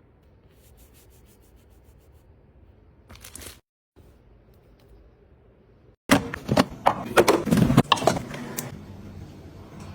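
Close-up handling noises: soft rustling at first, then from about six seconds in a loud run of sharp clicks, crackles and rubbing.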